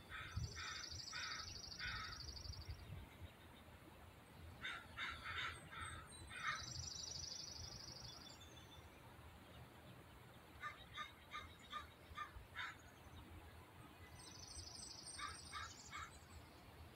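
Birds calling: runs of four to seven short, evenly spaced calls, with a buzzy higher trill from a second bird overlapping several of the runs, over a faint low outdoor rumble.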